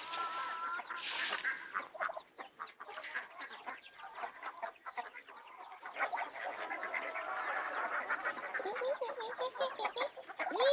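Poultry calling in short repeated calls, with a bright chime-like sound about four seconds in.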